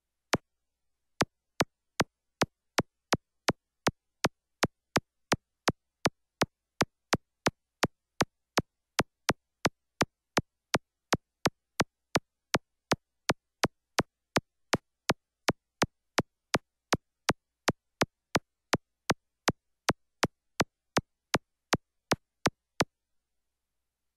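A long, perfectly even run of sharp digital clicks, about two and a half a second, with dead silence between them: a computer-generated click sound, typical of a program ticking off each photo as it fills the collage frames. The clicks stop about a second before the end.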